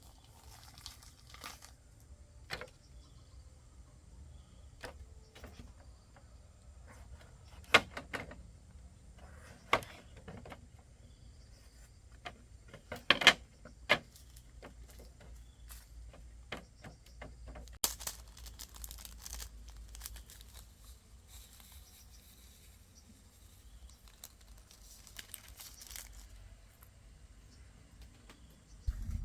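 Intermittent rustling and crinkling handling noises with scattered clicks, and a few sharp knocks standing out: one about eight seconds in and two close together around thirteen to fourteen seconds.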